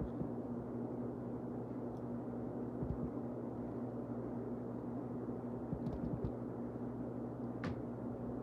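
A few faint clicks and taps of hard plastic toy parts being handled as the heat-ray accessory is pushed into the action figure's mouth, over a steady low background hum and hiss.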